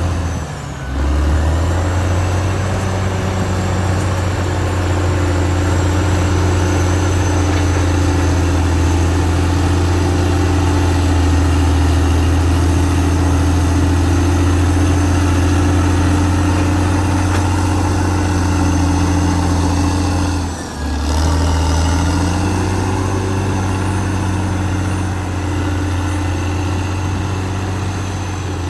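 Caterpillar D6R XL bulldozer's diesel engine running steadily, with a thin high whine above the low engine note. The sound briefly drops away just under a second in and again about two-thirds of the way through.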